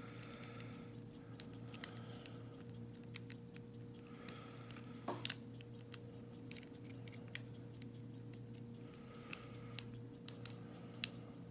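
Small metal lock-picking tools clicking and clinking as they are handled, in scattered light ticks over a steady low hum. There is one short falling squeak about five seconds in.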